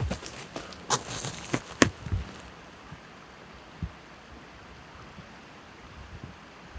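Close handling and rustling of a hunter's clothing and gear, with a few short sharp clicks in the first two seconds and a single soft thump near the middle, over a faint outdoor hush.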